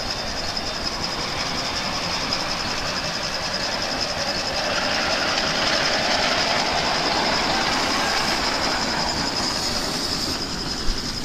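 Miniature ridable live-steam locomotive running past close by, the noise of its steam and its wheels on the track swelling as it draws level about halfway through. A single sharp click near the end.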